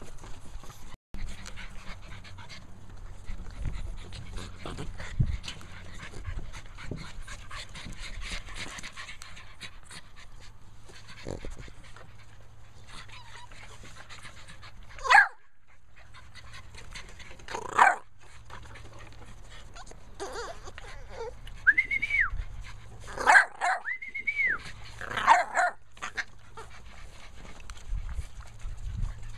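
American bully puppies panting and scuffling about, with two short sharp yelps about halfway through and a cluster of high whining yelps and yips near the end.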